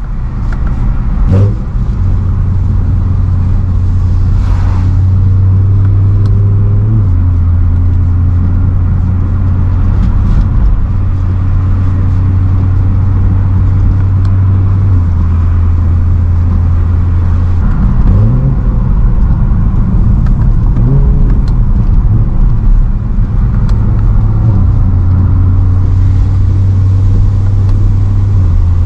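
BMW M3 E92's 4.0-litre V8 running under way, a steady low drone that shifts in pitch in steps several times. An even hiss of tyres on a wet road runs underneath.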